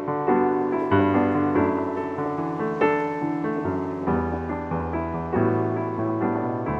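Background piano music: gentle chords and melody notes struck and left to ring.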